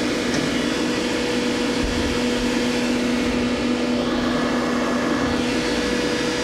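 Doosan Puma 400LB CNC lathe traversing its Z-axis carriage. The axis drive gives a steady whine over the machine's even running hum, and the lower tone stops shortly before the end. The axis motion sounds nice.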